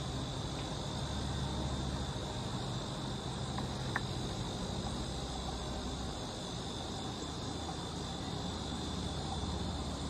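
A steady high-pitched insect-like drone over a low hum, with one faint sharp click about four seconds in.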